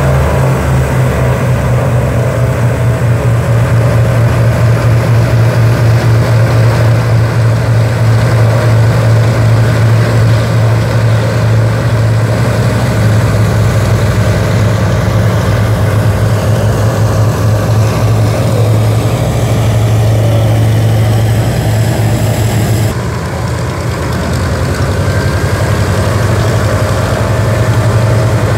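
Consolidated PBY-5A Catalina's twin Pratt & Whitney R-1830 radial engines running at low power as the flying boat taxies: a loud, deep, steady drone with a fast beat. It dips slightly about 23 seconds in, then picks up again.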